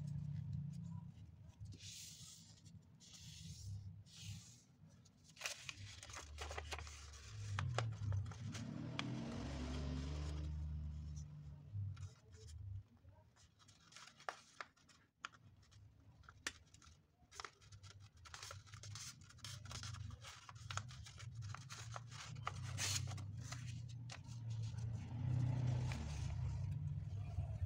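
A sheet of origami paper handled and folded by hand: rustling and sliding of the paper, with many crisp clicks as creases are pressed flat, over a low steady hum.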